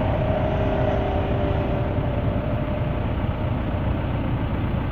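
Backhoe engine running steadily at idle, a continuous low rumble.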